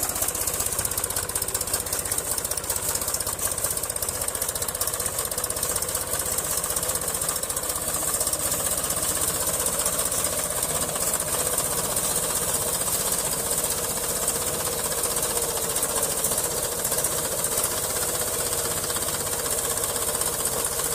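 Mahindra 275 TU XP Plus tractor's three-cylinder diesel engine running steadily under load with a rapid, even clatter while pulling a cultivator.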